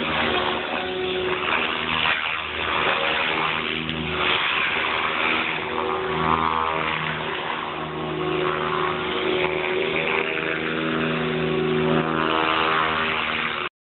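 Radio-controlled model helicopter flying, its motor and rotor blades running with a pitch that shifts as it manoeuvres. The sound cuts off suddenly near the end.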